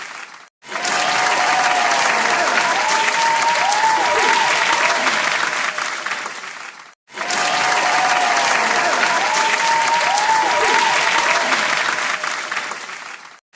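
Applause sound effect: a crowd clapping, the same clip of about six seconds playing twice, each time fading and cutting out briefly before it starts again.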